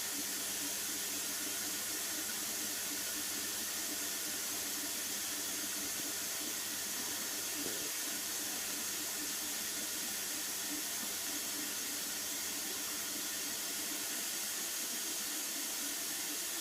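Indesit 860B washing machine filling with water: a steady hiss of water running in through the inlet valve at the start of the prewash.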